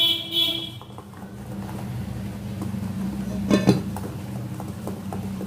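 Wire whisk stirring a thin flour batter in a steel bowl, with a steady low hum that swells over the first couple of seconds and then holds.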